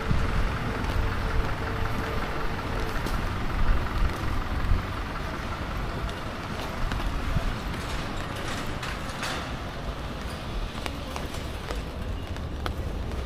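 Street traffic: a low rumble of a vehicle going by, loudest over the first few seconds and then easing off to a steadier background hum, with scattered light clicks.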